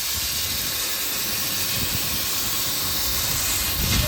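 Steady hiss of a CNC tube laser cutting machine running as it bevel-cuts a thick carbon steel square tube, with a faint low rumble underneath.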